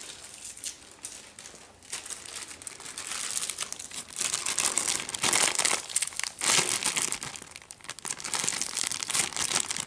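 Plastic zip-top bag crinkling as strawberries are squeezed and mashed to a pulp inside it by hand. The crinkling is faint for the first couple of seconds, then louder and irregular.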